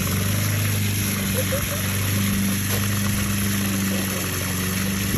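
A small engine running steadily at a constant speed, giving an even low drone.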